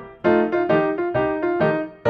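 Background music: a piano playing a melody of single struck notes, about five in two seconds, each dying away before the next.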